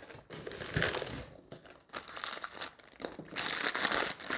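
Packaging crinkling and rustling as a statue accessory is unwrapped from its wrapping, in irregular bursts that grow louder and busier near the end.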